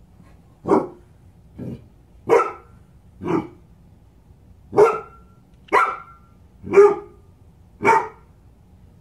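Large black dog barking at an unfamiliar object on the floor in front of it. It gives eight short single barks roughly a second apart, and the second one is quieter.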